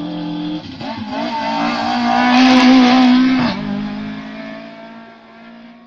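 Rally car engine at high revs passing close by, growing louder to a peak a little under three seconds in, then dropping in pitch as it goes past and fading away.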